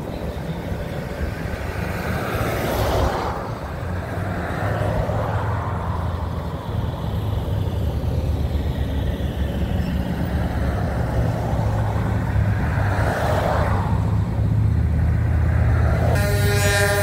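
Pickup trucks and a truck hauler towing offshore race boats driving past, a steady low engine rumble with two swells of engine and tyre noise as vehicles go by. About a second before the end a vehicle horn starts sounding.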